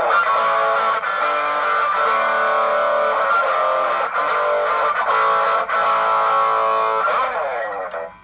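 Electric guitar played through a Joyo British Sound pedal, a Marshall-voiced amp-simulator overdrive, into a small Marshall amp: a run of distorted strummed and picked chords. A last chord is struck about seven seconds in and is cut off just before the end.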